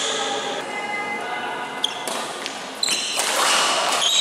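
Badminton play in a sports hall: a sharp racket-on-shuttlecock hit about two seconds in, then shoes squeaking on the court mat and players moving as the next rally starts.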